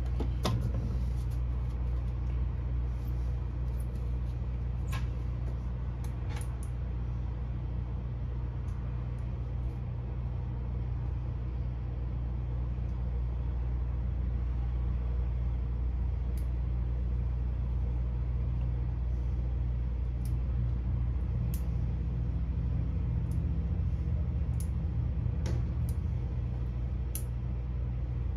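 Steady low engine drone, with a few short sharp clicks scattered over it.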